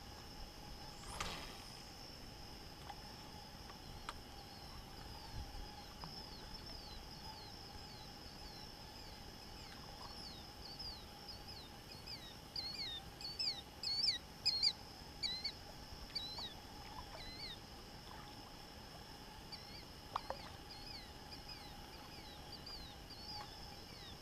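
Steady high buzzing of insects at twilight. Over it a bird calls a quick series of short notes, each sliding down in pitch, loudest about halfway through and again near the end. Two brief knocks, about a second in and near the end.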